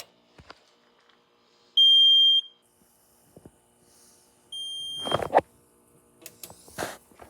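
Fire alarm control panel's piezo trouble sounder beeping twice, a high steady tone of just over half a second each, about two and a half seconds apart: the panel signalling a trouble condition. Rustling and clicks from handling follow the second beep.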